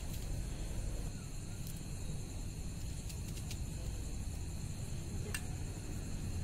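A few faint ticks of a small knife peeling garlic cloves into a steel bowl, over a steady low rumble and a thin, steady high-pitched drone.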